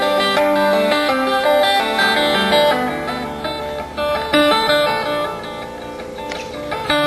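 Harp guitar played solo fingerstyle: quick plucked melody notes over sustained low bass-string notes, getting softer in the last couple of seconds.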